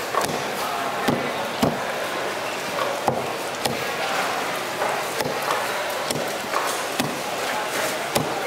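A large knife cutting fish on a wooden chopping block, the blade knocking into the wood at uneven intervals, about once a second, over steady background noise.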